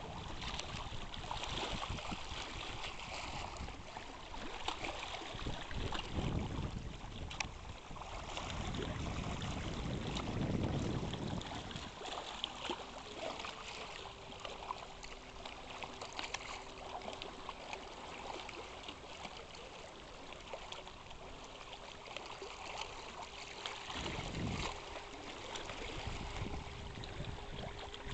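Choppy lake water splashing and lapping at the shore, with wind gusting on the microphone in low rumbles a few times. About halfway through a faint steady hum joins in and holds.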